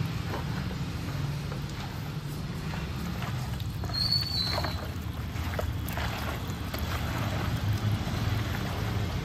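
Gloved hand squishing and turning yogurt-marinated chicken pieces in a plastic bowl, faint soft wet scraping over a steady low rumble, with one brief high chirp about four seconds in.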